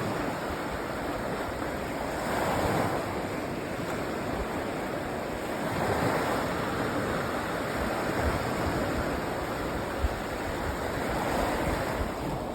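Sea waves washing onto a sandy beach, the surf swelling and falling back three times.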